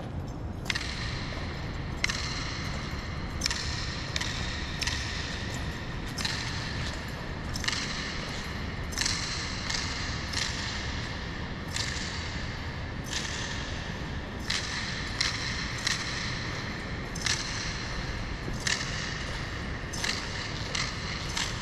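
Honour guards' boots marching in step on a hard polished floor. A sharp stamp about every one and a half seconds with softer steps between, each ringing and echoing in the large hall, over a steady low hum.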